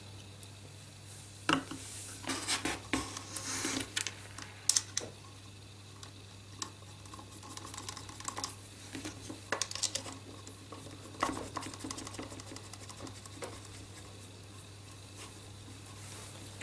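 Scattered light clicks and taps of hand-handled parts: a plastic motor support knocking against an acrylic base plate and small steel screws being fitted into their holes. Most of the taps come in a cluster a couple of seconds in, with a few single ones later.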